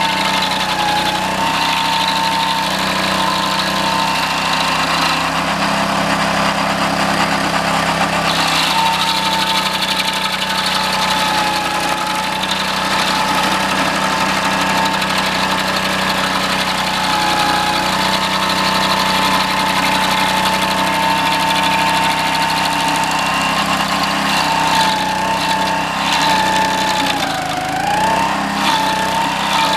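Homemade stump grinder's 6.5 hp Honda single-cylinder engine running steadily at speed, driving its toothed cutting wheel. Its pitch sags and recovers several times near the end, as when the engine takes load.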